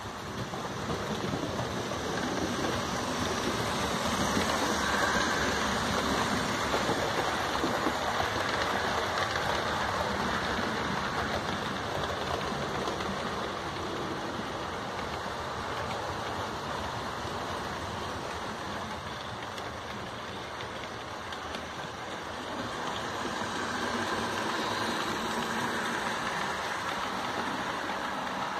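Tri-ang Hornby OO-gauge model trains running on the track: a steady whirr and rumble of electric motors and wheels on rail, growing louder as a train passes about 4 to 8 seconds in and again about 24 seconds in.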